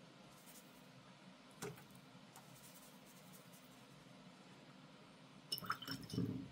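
A paintbrush clinks against a glass water jar while being rinsed and tapped, with one light tap early on and a quick run of clinks that ring briefly near the end.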